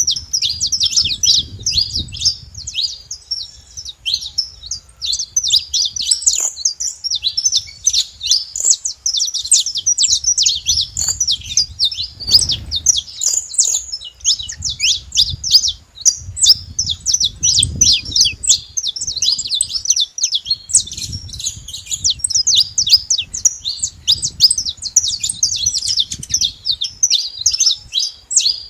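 Saffron finches singing: a dense, continuous stream of quick high chirping notes, with an intermittent low rumble underneath.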